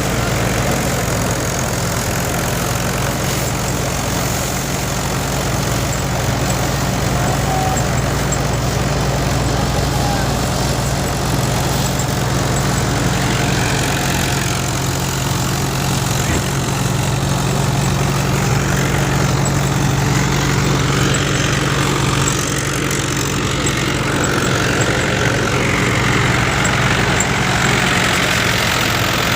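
Multicrop thresher running steadily under engine power: a constant low engine hum under a broad mechanical din.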